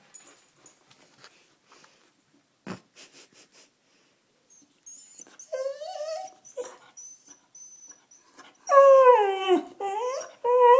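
Dog whining and crying for food: a short whine about halfway through, then a louder run of drawn-out whines that slide down in pitch near the end.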